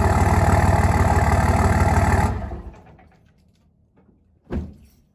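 5.9 common-rail Cummins inline-six turbo diesel idling steadily, then shut off a little over two seconds in, running down to quiet within about half a second. A single sharp thump follows about two seconds later.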